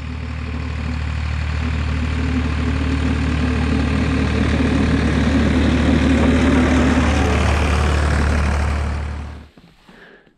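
Ford 2810 tractor engine running steadily as the tractor drives forward pushing snow with a front plow blade, a low engine hum under a rushing noise. It grows louder over the first several seconds, then fades away and stops about nine and a half seconds in.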